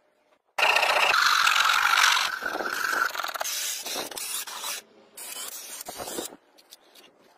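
Power drill boring into grey plastic sheet: a steady motor whine over a rasping scrape that starts suddenly about half a second in. The whine drops out around three seconds, and the scraping goes on in uneven stretches with a short break before stopping shortly after six seconds.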